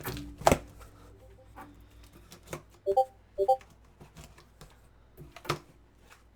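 Cardboard shoe boxes being handled: a loud knock about half a second in, then scattered taps and clicks and another knock near the end, with two short squeaks about three seconds in.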